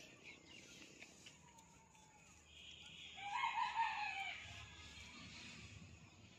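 A rooster crows once, about two and a half seconds in, for roughly two seconds, over a faint steady hiss.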